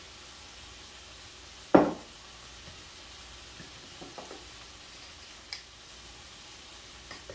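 Onions frying in a cast iron skillet, a steady low sizzle, while a spoon stirs sauce in a small glass bowl with a few light clicks. One loud, short knock comes nearly two seconds in.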